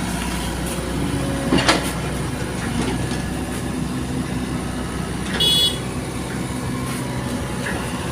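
Heavy machinery engine running steadily, with a sharp knock about a second and a half in and a brief high-pitched tone about five and a half seconds in.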